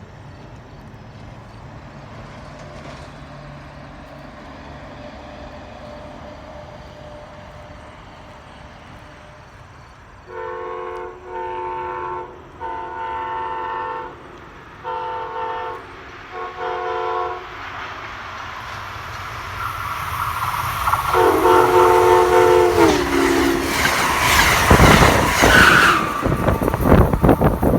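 Horn of Amtrak cab car 9641 sounding a chord in five short blasts from about ten seconds in, then a longer blast whose pitch drops as the train passes. The loud rush and clatter of the train going by at about 110 mph follows.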